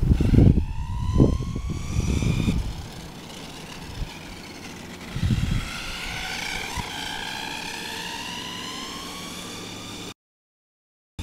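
RC monster truck's motor whining as it speeds along the pavement, rising in pitch as it accelerates, twice. Loud low rumbling in the first couple of seconds, with another short burst a little past the middle.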